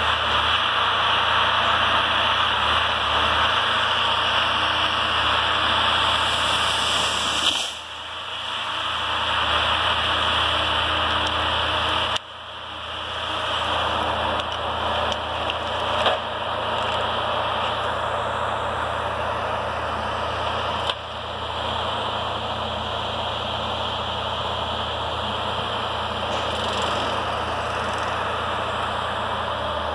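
Ecolog 688E tracked forestry harvester's engine running steadily at a distance, a low hum under a broad hiss, with a few sharp clicks. The sound drops suddenly twice and swells back.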